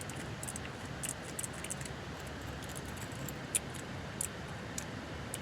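Scattered sharp clicks from a keyboard fidget toy's keys being pressed and handled, a few louder ones near the end, over the steady rumble of a car cabin.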